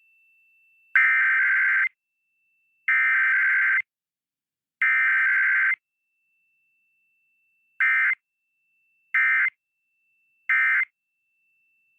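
Emergency Alert System digital data bursts: three buzzy header bursts of about a second each, then three short end-of-message bursts, evenly spaced with silence between. Header followed straight by end-of-message with no attention tone and no voice message is the pattern of a required weekly test.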